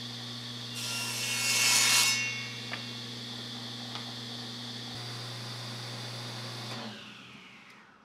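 Table saw running with a steady hum and high whine, its blade cutting through plywood for about a second and a half near the start. About seven seconds in, the saw is switched off and the blade spins down to a stop.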